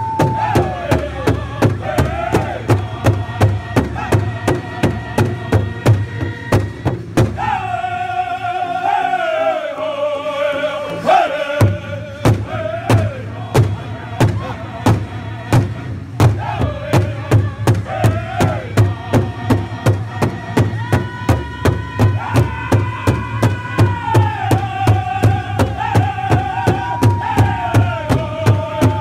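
Powwow drum group striking a large shared drum in a fast, even beat while the men sing together in high voices. The drum drops out for a few seconds about seven seconds in while the singing carries on, descending, then the beat comes back in.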